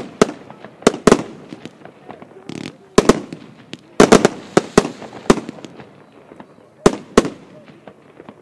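Evolution Fireworks Kiloknaller 2 firework battery firing: an irregular run of sharp bangs as its shots launch and burst overhead, coming in clusters and thickest about four to five seconds in, with two lone bangs near the end.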